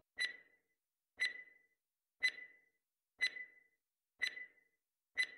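Countdown timer sound effect ticking once a second, six ticks in all, each a sharp double tick with a brief high ring.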